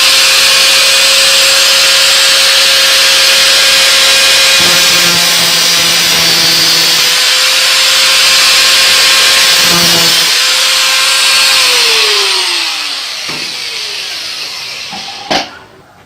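Small handheld electric sander-grinder running at a steady high whine while cutting into the steel outer race of a washing machine's worn lower bearing, with a loud gritty hiss from the cut. About twelve seconds in it is switched off and its whine falls as it spins down; a sharp click follows near the end.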